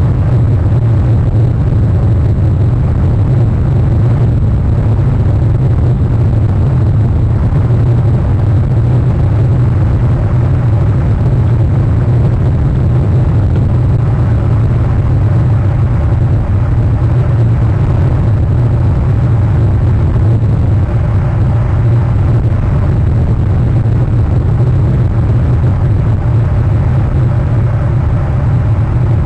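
A loud, steady low rumble with a fainter hiss above it, unchanging throughout.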